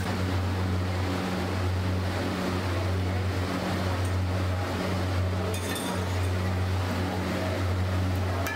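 Steady low mechanical hum with an even rushing noise beneath it, the running background of a street-food kitchen. About five and a half seconds in there is a brief metallic clatter as a spatula works buns on the iron griddle.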